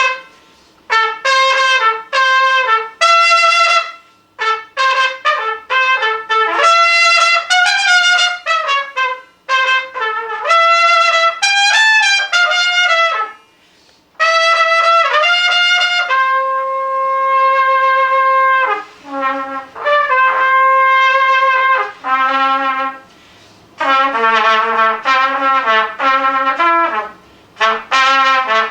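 Unaccompanied trumpet playing a solo: phrases of quick short notes broken by brief pauses, a few long held notes past the middle, and lower notes near the end.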